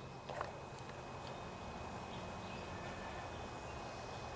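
Quiet, steady background hum with a single faint click about half a second in.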